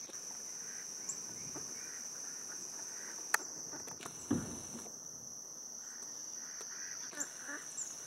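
Outdoor ambience of bird calls over a steady high-pitched drone. A sharp click comes about three seconds in, and a low thump from the camera being handled follows just after four seconds.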